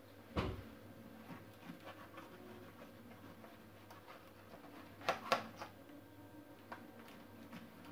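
A knife cutting through the crust of a baked stuffed bread in a metal baking tin: faint scraping strokes, a dull thump about half a second in, and a few sharp knocks about five seconds in.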